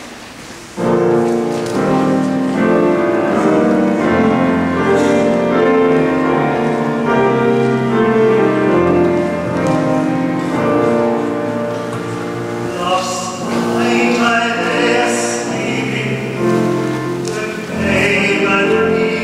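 Live sacred song for tenor, choir and keyboard accompaniment, coming in about a second in after a moment of near quiet, with the church's reverberation around it.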